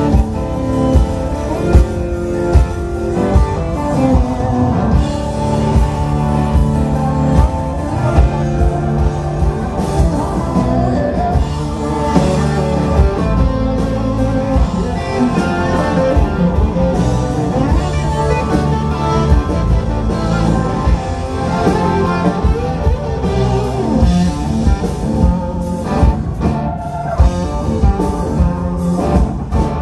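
Live rock band playing loud: electric guitars over bass and drums.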